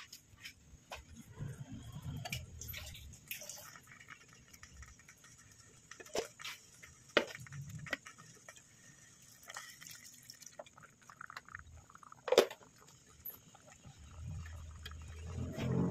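Spaghetti simmering in a pot with its sauce: scattered bubbling pops and drips, with one sharper pop about twelve seconds in. A low hum comes in near the end.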